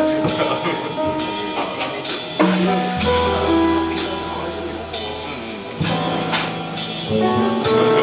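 Jazz piano trio playing live: grand piano, upright double bass, and drum kit. Sustained low bass notes sit under the piano's melody and chords, with the drums keeping an even beat.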